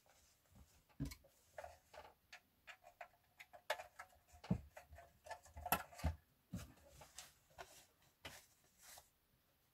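Faint, irregular clicks and taps of hands handling a model truck's wire canopy bows and plastic cargo bed as a fabric tent is taken off.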